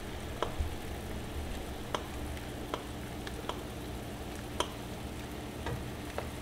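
Sugar syrup bubbling and sizzling in a skillet while a metal spoon ladles it over fruit skewers, with irregular sharp clinks of the spoon against the pan.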